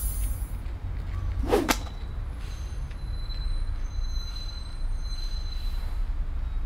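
A single quick whoosh sound effect, rising sharply in pitch about one and a half seconds in, over a steady low background rumble.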